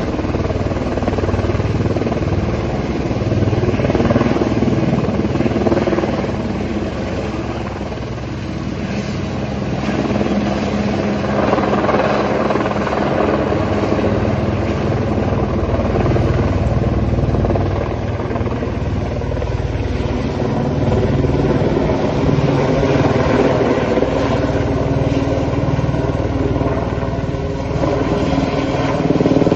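Helicopter overhead, lifting a cut tree on a long line, with a continuous rapid rotor beat that swells and eases gently as it moves.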